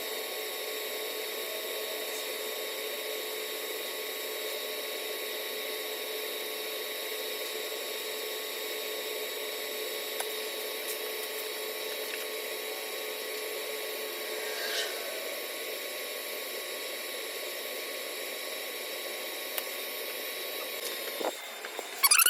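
Steady hiss of a TIG welding arc run off a stick welder, with faint constant whining tones; a lower tone fades out about two-thirds of the way through, and crackling bursts start at the very end.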